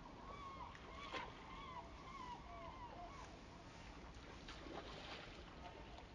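Waterfowl calling in a rapid run of short, wavering notes that overlap one another. The calls thin out about halfway through.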